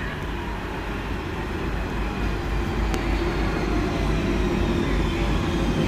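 London Underground 1992 Stock Central line train running into the station platform, its rumble growing steadily louder as it nears. A faint whine falls slowly in pitch as the train brakes, and there is a single short click about halfway through.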